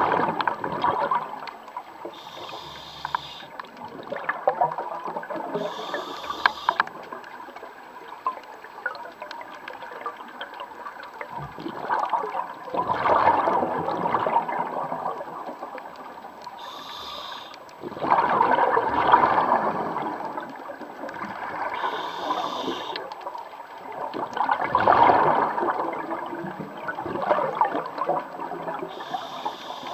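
Scuba regulator breathing heard underwater: a rush of exhaled bubbles about every six seconds, with short hissing inhalations through the regulator between them.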